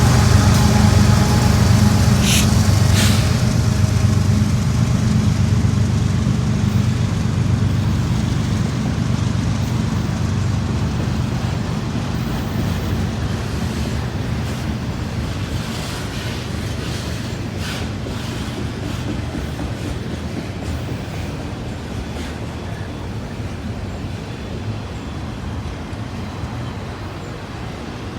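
BNSF freight train rolling by: a steady low diesel drone with the noise of the moving train over it, slowly fading throughout. A couple of sharp clicks come a few seconds in.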